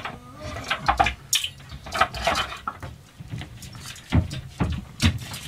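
Light knocks, clicks and rustles of things being handled at a small boat's galley, then a few dull thumps about four to five seconds in as a person steps across the cabin floor.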